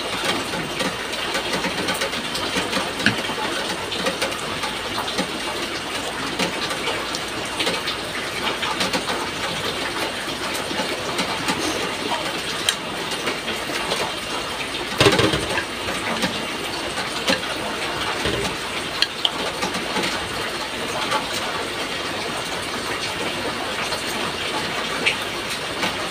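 Steady hiss of background noise with scattered small clicks and knocks of eating, one louder knock about fifteen seconds in.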